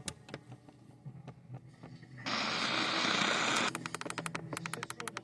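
Radio receiver static with scattered faint crackles, a burst of hiss lasting over a second about two seconds in, then a quick run of sharp clicks near the end.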